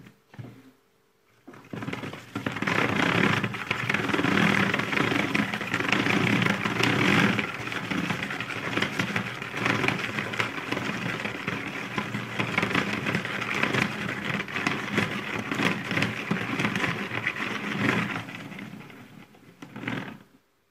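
Tupperware salad spinner whirring and rattling as it is spun by hand, loaded with syrup-soaked fried qatayef. The sound starts about a second and a half in, keeps going with small rises and falls, and dies away near the end.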